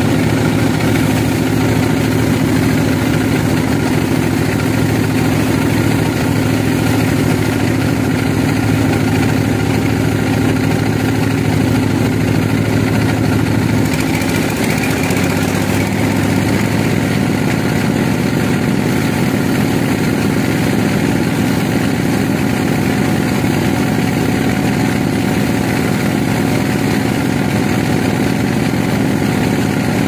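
Band sawmill running steadily while it saws through a large log: a continuous machine drone with the blade working in the wood. The drone shifts slightly about halfway through.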